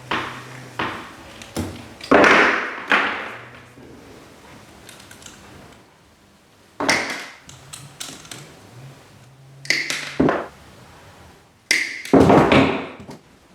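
Irregular knocks, taps and thuds of hands-on fitting work in a small garage, about half a dozen separate strikes with short scrapes, the loudest about two seconds in and near the end, with a faint low hum between some of them.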